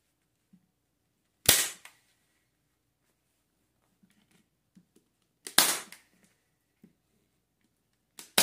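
Staple gun firing staples through upholstery fabric into a chair seat's base: three sharp snaps, the last near the end, with faint handling knocks between them.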